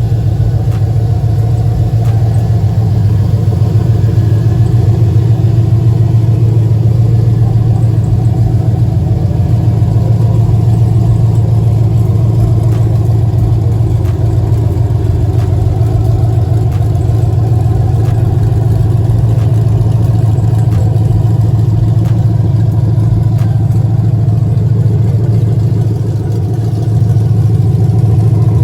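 LS1 V8 idling open-header, exhausting straight out of Kooks long-tube headers with no exhaust system attached, loud and steady. The level dips briefly near the end.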